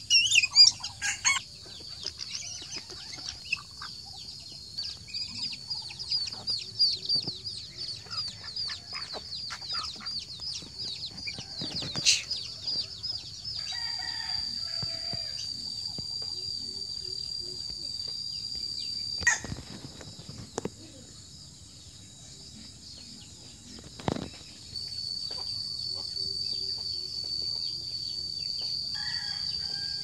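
Farmyard chickens clucking, with a rooster crowing, over a steady high-pitched insect chirring. A few sharp knocks stand out, the loudest in the first couple of seconds.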